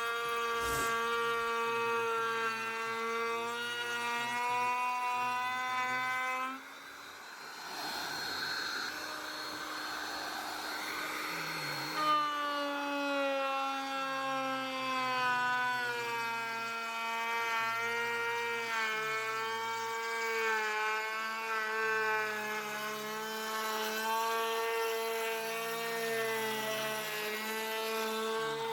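Electric power tool's motor running with a steady whine. About six seconds in, the whine gives way to a quieter hiss for some five seconds, then comes back at a slightly lower pitch.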